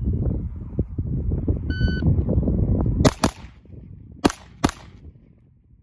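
Shot timer beeps once, then a pistol fires four shots: a quick pair, a pause of about a second, and a second quick pair, with wind rumbling on the microphone before the shots. The pause between pairs is the transition to the second target, slowed by losing the red dot for a moment.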